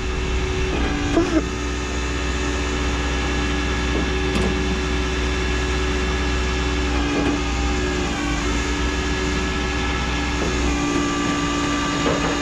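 Engine and road noise inside a moving tow truck's cab: a steady low rumble with an engine drone whose pitch steps down a couple of times.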